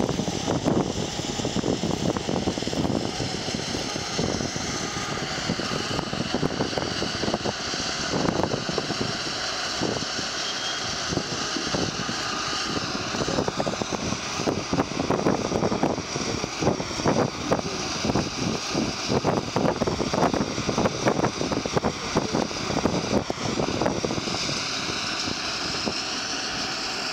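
A tram running along the rails, heard from on board: steady running noise with wheels clattering and rattling over the track, busiest in the middle stretch. A steadier whine comes in near the end as it draws into the station.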